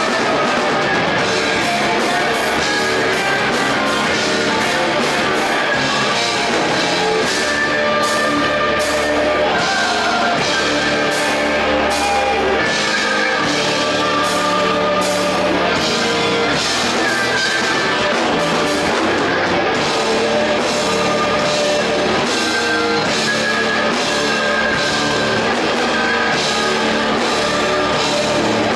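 A rock band playing live: guitar, bass and a drum kit going at full volume, with a steady drum beat throughout.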